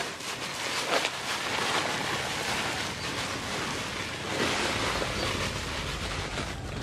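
Dry soil pouring in a steady rushing stream from a plastic sack onto a bed of chopped banana stems. It follows a few crackles of rubber boots trampling the dry stem pieces at the start.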